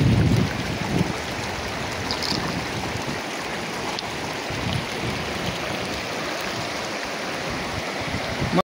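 Shallow river running over stones and through riffles, a steady rushing of water. Wind buffets the microphone in the first half-second and briefly now and then after.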